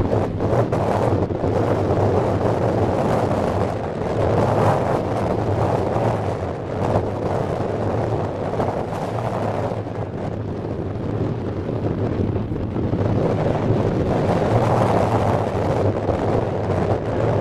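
Wind buffeting the microphone: a loud, steady rush that swells and eases, with no clear separate events.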